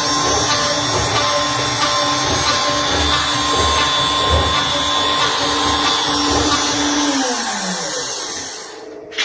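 Heavy-duty CNC router's spindle running with a steady whine over rough cutting noise, then spinning down about seven seconds in, its pitch sliding down as it fades. A sharp click near the end.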